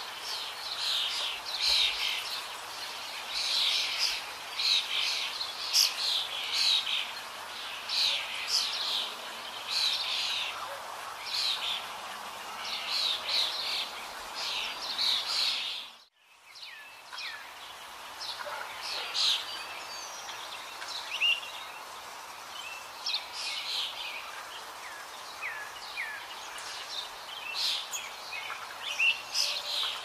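Small birds chirping and twittering in a busy chorus over a steady outdoor hiss. About halfway through, the sound cuts out abruptly and comes back quieter, with sparser chirps and a few short sweeping whistles.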